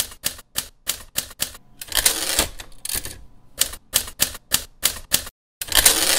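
Manual typewriter keys striking one by one, about three a second, in two runs. Each run ends in a longer rattling carriage return, one about two seconds in and one near the end.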